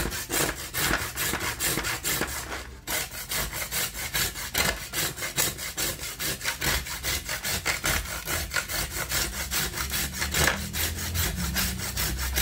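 A clay diya rubbed back and forth over the blades of a metal kitchen grater: a rasping scrape in quick, even strokes, several a second, with one short break about three seconds in. The rubbing hones the grater's dull cutting edges.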